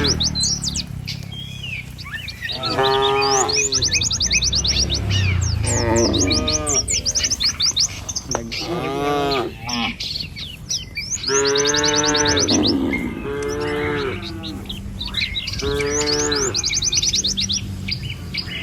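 Cattle mooing repeatedly, drawn-out calls of about a second each, roughly every three seconds, with birds chirping in quick high trills between and under them.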